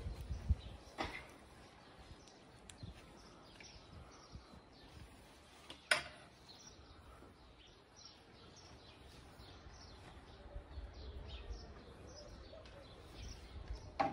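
Small birds chirping in many short falling calls, with a few sharp knocks, the loudest about six seconds in, over a low rumble.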